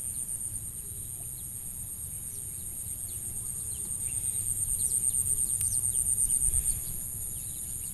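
Insects trilling steadily at a high pitch. The trill swells and pulses more strongly from about four seconds in, then drops back shortly before the end. Faint short chirps sound over it.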